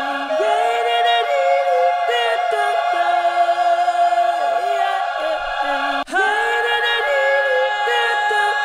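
Sampled soul vocals from an East West soul vocal library: a choir layered with lead and background voices singing long held chords, with no instruments. The phrase cuts off suddenly about six seconds in and starts again.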